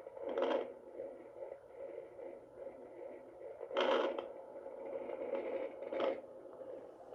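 Handheld fetal Doppler's speaker hissing and crackling as the probe slides through gel over the belly, with three louder scraping swishes about half a second in, around four seconds and around six seconds. No fetal heartbeat is being picked up yet.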